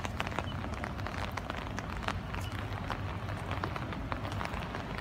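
Steady rain, with many irregular sharp ticks of individual drops hitting leaves and nearby surfaces over a soft hiss. A low steady rumble sits underneath.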